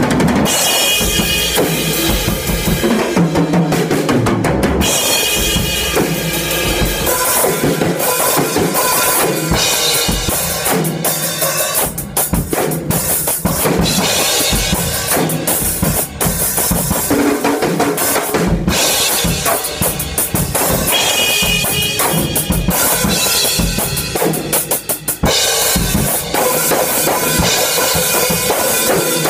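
Acoustic drum kit played without a break, mixing bass drum, snare and ringing cymbals.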